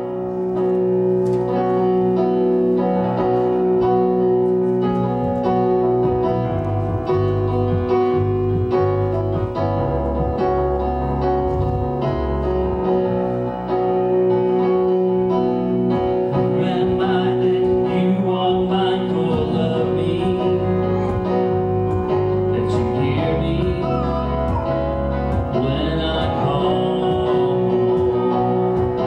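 Music on a keyboard, playing held chords, with singing voices coming in about halfway through.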